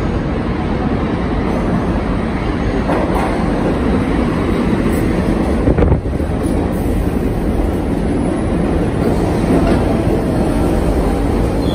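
New York City subway train running into the station along the platform: a loud, steady rumble of steel wheels on the rails, with one brief louder knock about six seconds in.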